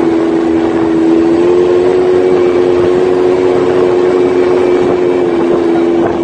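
Quad bike (ATV) engine running at a steady high pitch while riding. The pitch steps up slightly about a second and a half in and eases back near the end.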